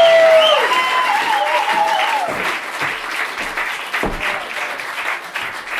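Club audience applauding and cheering, with long whoops over the first two seconds or so; the clapping then goes on and slowly thins out.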